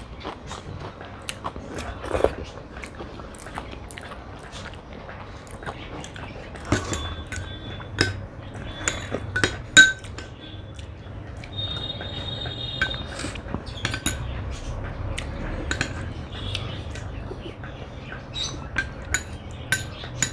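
Fingers wiping across a ceramic plate, then a steel spoon scraping and clinking in a small ceramic bowl of curd, with many sharp clinks, some of them ringing briefly.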